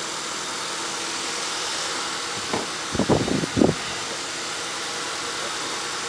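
2013 Honda Accord's four-cylinder engine idling steadily with an even whooshing hum, running after a too-tight valve on cylinder 4 was found as the cause of its misfire. A few short sounds break in about two and a half to four seconds in.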